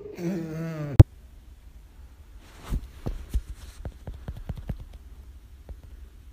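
A person's wavering, drawn-out vocal sound that cuts off suddenly with a sharp click about a second in, followed by a scatter of light taps and knocks.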